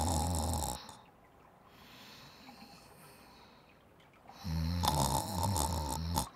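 Snoring from sleeping pirate characters. One long snore ends about a second in, and a second long snore comes about four and a half seconds in, with a softer breathy stretch between them.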